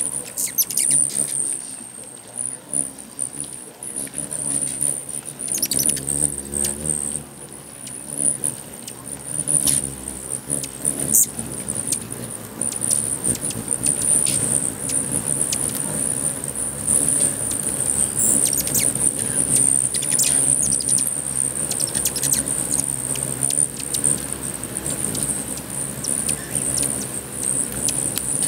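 A swarm of hummingbirds at a feeder: a constant hum and flutter of wings with a steady high whine and many quick, high chirps. The din grows fuller after the first several seconds as more birds arrive.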